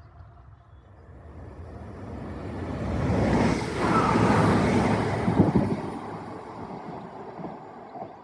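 A train passing at speed, its rumble and rush building up, loudest about four seconds in, then fading away.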